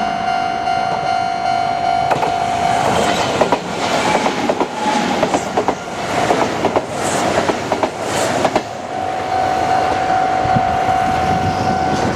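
Level-crossing alarm ringing with a steady high tone while a Kintetsu Nagano Line train passes over the crossing. Its wheels click over the rail joints for about six seconds, starting about two seconds in. The alarm tone goes on after the train has passed.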